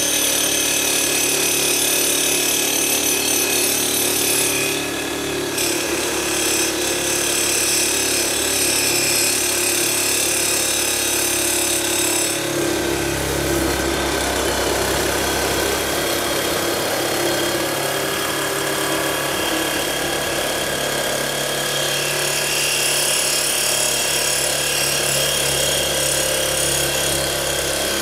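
A Makita 18V cordless reciprocating saw running continuously, its blade sawing through a thick square steel tube held in a vise. The sound shifts lower in tone about halfway through.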